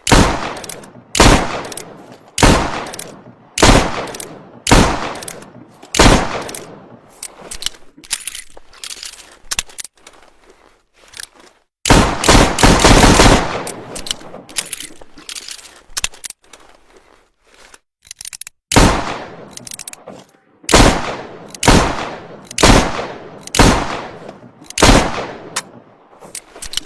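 Model 1892 revolver firing single shots about a second apart, six in a row, then a stretch of quieter metallic clicks and a longer rattle, then another string of about seven shots at the same pace.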